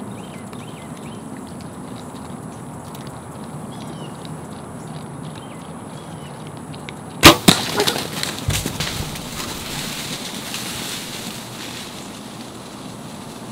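A bow shot at feeding feral hogs: one sharp, loud crack about seven seconds in as the bow fires and the arrow strikes, followed by a few seconds of crashing and scrambling as the hogs scatter through dry leaves and brush.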